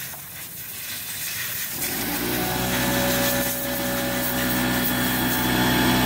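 A pancake air compressor's motor starts up about two seconds in and runs with a steady droning hum, over the hiss of compressed air blowing dust out of a vacuum cleaner part.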